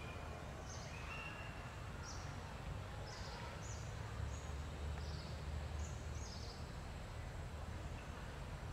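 Small forest birds giving short, high chirps, about one a second, that stop about two-thirds of the way in, over a low steady rumble of background noise.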